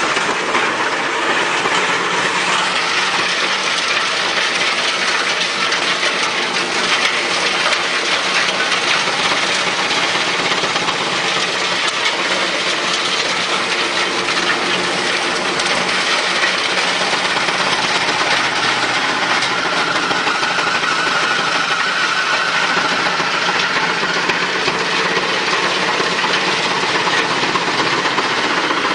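Drum-type wood chipper running loudly: a steady mechanical rush with a constant rapid clatter of small knocks and clicks.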